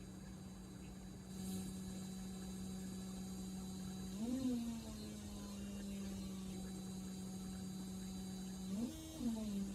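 Novation Peak synthesizer holding a low, quiet drone note with a buzzing hum, which gets a little louder about a second and a half in. The pitch bends up and settles back down twice, around four seconds in and again near the end.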